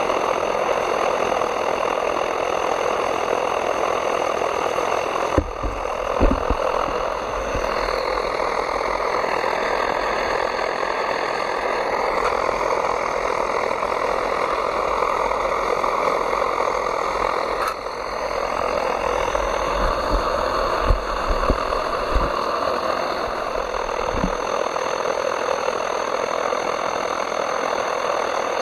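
British Army No. 7 pressurised gasoline burner running at full flame under a pot of water, a steady roar as the water heats towards the boil, with a few brief low thumps.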